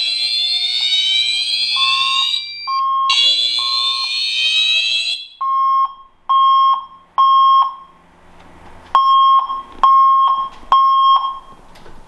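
Fire alarm notification appliances sounding in alarm. A dense, high buzzing horn tone sounds over short beeps, breaks briefly and then cuts off about five seconds in. After that a horn beeps in the temporal-three evacuation pattern: three beeps, a pause, three more.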